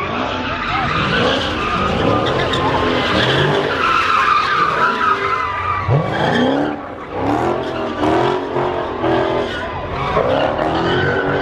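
Car engines revving hard and tires squealing as cars spin donuts, the revs rising and falling again and again.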